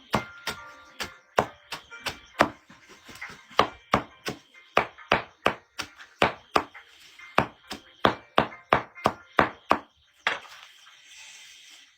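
A blade chopping into wood in quick, regular strikes, about two to three a second, that stop near the end.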